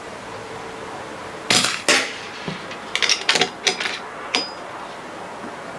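FX Crown PCP air rifle fired through a Donny FL Tatsu moderator: a muted shot, then about half a second later a sharp knock as the pellet strikes the target. After that comes a run of short metallic clicks and knocks, the last with a brief high ring.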